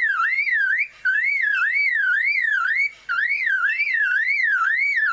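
Superb lyrebird mimicking a car alarm: a whooping tone that sweeps up and down about three times a second, in three runs broken by brief gaps.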